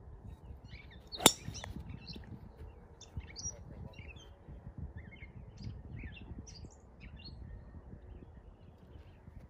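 A single sharp crack about a second in, typical of a golf club striking a ball, followed by birds chirping repeatedly.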